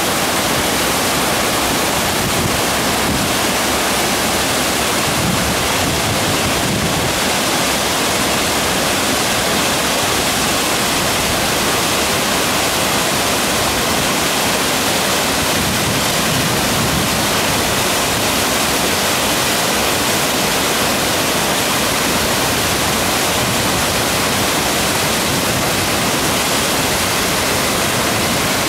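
Skútafoss waterfall: a steady, loud rush of falling water, even and unbroken.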